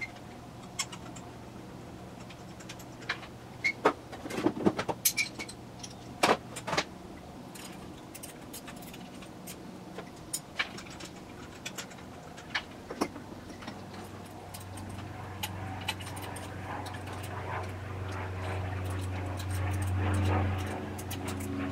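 Irregular metal clicks and clinks of a ratchet and socket extension working the spark plugs in a car's engine bay. About two-thirds of the way in, a low steady engine hum comes in and grows louder toward the end.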